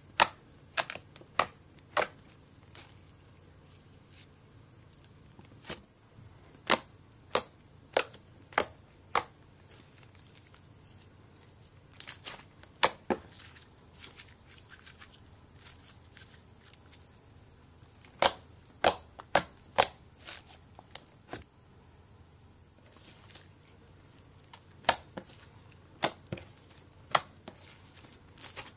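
Hands squeezing and poking slime, making sharp pops and clicks that come in clusters of several at a time, separated by quieter stretches of soft squishing.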